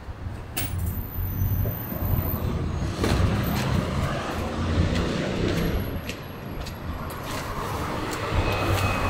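A motor vehicle engine running with a low rumble that grows louder about a second in and then holds steady, over road traffic noise.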